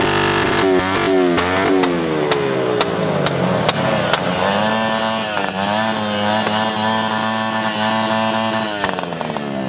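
Small single-cylinder pit bike engine revving: its pitch sinks over the first few seconds, climbs again about four seconds in, holds high, then drops near the end.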